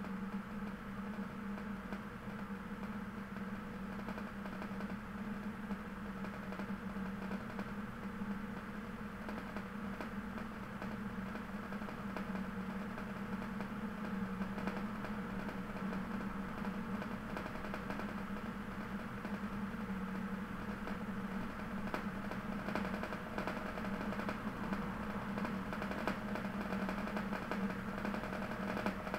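Steady low mechanical hum with faint hiss, unchanging throughout.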